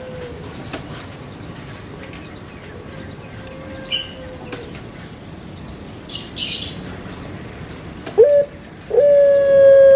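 Scattered short, high bird chirps, then about eight seconds in a loud, long, steady animal call that holds one pitch.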